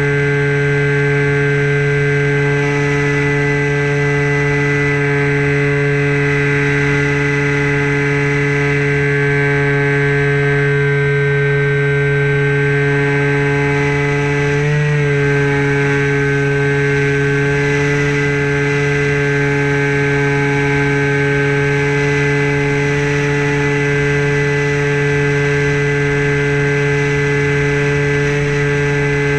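Electric motor and propeller of a Super Sky Surfer RC plane heard from its onboard camera: a steady, unchanging whine at cruise throttle. About halfway through the pitch briefly wobbles, then settles back.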